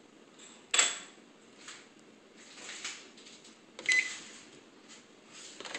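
Microwave oven being shut and set: a sharp click about a second in, a few soft handling rustles, then a second click with a brief high beep about four seconds in.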